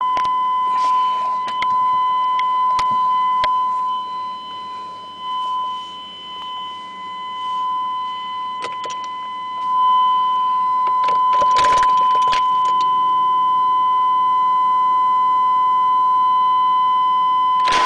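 A steady high-pitched electronic beep tone holds unbroken, then cuts off suddenly near the end. Scattered clicks and a brief jingle of keys a little past the middle sound over it.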